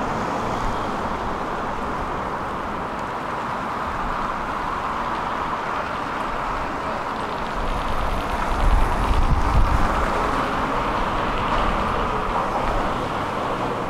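Steady urban street noise with road traffic; a heavier low rumble swells and passes about eight to ten seconds in, as of a vehicle going by.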